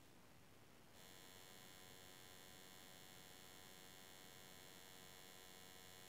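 Near silence: a faint steady electrical hum and whine. For about the first second it gives way to a faint even hiss.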